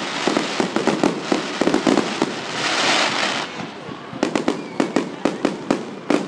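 Fireworks going off: dense rapid crackling, a hissing rush about two and a half seconds in, then a run of separate sharp pops.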